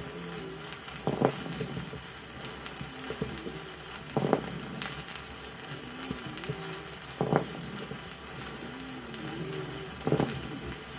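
Stethoscope recording of the lungs of a patient with bronchiectasis and pneumosclerosis: moist, sonorous crackles on breathing in and dry, wavering, buzzing wheezes (rhonchi) on breathing out, about four breaths, one roughly every three seconds. Record surface hiss runs underneath.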